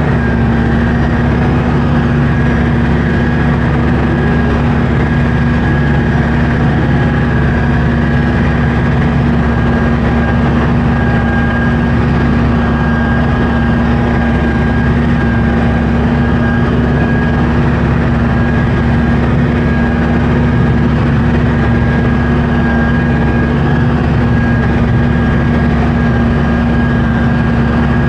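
Kubota M9000 diesel tractor running steadily under load while it drives an International 1490 haybine cutting hay. A constant engine drone is overlaid by a high, steady whine.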